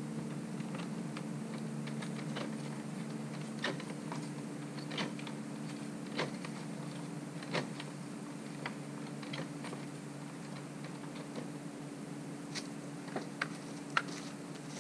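Scattered clicks and small metallic scrapes of a key working a door lock, over a steady low hum; a few more knocks near the end as he steps away.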